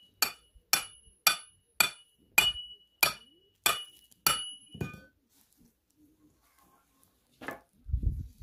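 Hammer blows on metal: about nine ringing strikes, roughly two a second, stopping about five seconds in. A single duller knock follows near the end.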